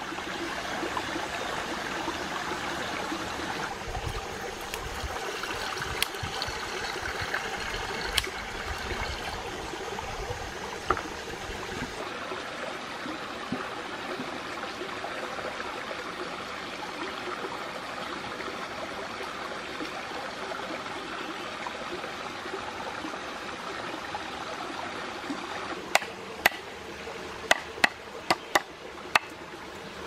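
Steady rush of a rainforest stream running over rocks, with a few light knocks. Near the end, a quick series of sharp chops as a machete-style knife cuts green stalks on a round wooden board.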